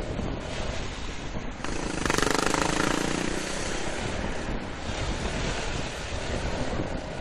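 Wind rushing over a helmet-mounted action camera's microphone while riding a motor scooter, with engine and road noise underneath; it grows louder for a second or so about two seconds in.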